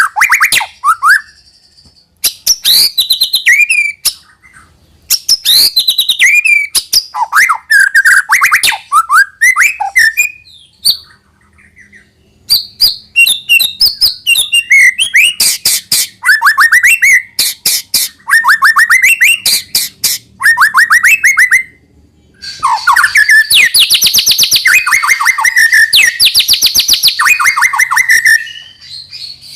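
White-rumped shama singing a loud, varied song of rapid trills, sweeping whistled notes and fast rattling runs, in phrases of a few seconds broken by short pauses; the last several seconds are a dense, continuous stretch of song.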